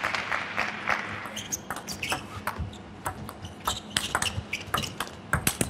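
Table tennis rally: the ball clicking sharply off the rackets and bouncing on the table in a quick, irregular run of hits, the loudest near the end.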